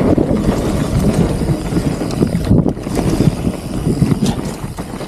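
Mountain bike riding fast down a dirt singletrack: tyres rumbling and rattling over the uneven ground, with wind buffeting the microphone.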